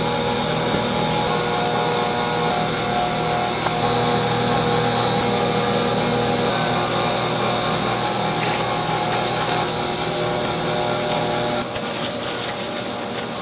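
Steady whirring drone of kitchen machinery, several tones held at once. About a second and a half before the end it drops to a quieter, different hum.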